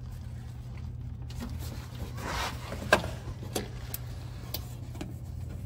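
Handling of a loosened starter motor and its wiring under a truck: a brief scraping rustle, then a handful of light clicks and knocks, over a steady low hum.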